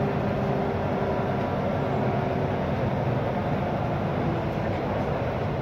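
Inside a moving NE81 diesel railcar: a steady running drone of the underfloor diesel engine and the wheels rolling on the track.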